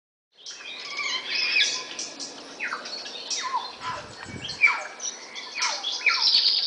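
Wild birds calling outdoors: a busy chorus of high chirps with repeated whistles that slide downward in pitch, about one a second, starting about half a second in.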